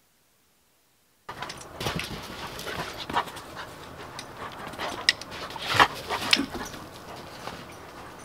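Doberman panting, starting about a second in, with a few sharp scuffs or knocks in the middle.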